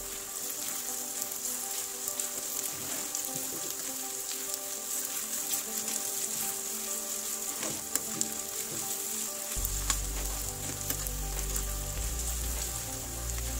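Chopped ginger and shallots sizzling steadily in hot coconut oil in a nonstick pan, frying slowly on a low flame towards golden brown. A slotted spatula stirring through them gives a few sharp clicks and scrapes against the pan.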